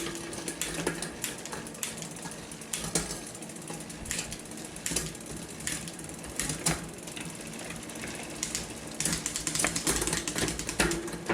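A 2020 Ragley Blue Pig mountain bike's drivetrain being run through its gears: the chain whirs over the cassette, with many quick irregular clicks and ticks as the derailleur shifts and the rear hub ratchets.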